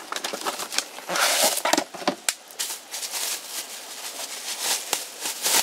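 A cardboard box being opened by hand and a ceramic bowl taken out of its packaging: irregular rustling and scraping of cardboard and packing, with many scattered clicks and taps.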